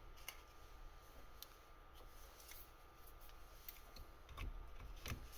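Faint small clicks and taps of parts being handled, over a low steady room hum.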